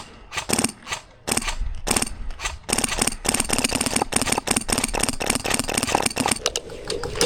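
A suppressed HPA airsoft MP5 (Polarstar F2 engine) firing: a few separate shots, then a long, fast full-auto stream of sharp clicks starting about three seconds in.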